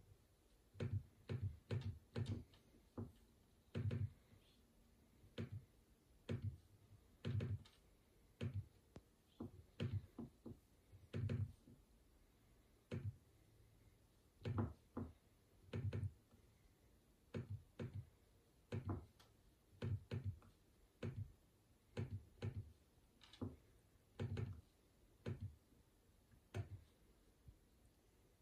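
Faint, irregular clicks and taps, one or two a second with short pauses, from a computer mouse being clicked while web pages are browsed.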